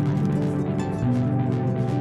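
Background music: layered, sustained notes that shift in pitch every half second or so, with a faint steady pulse above them.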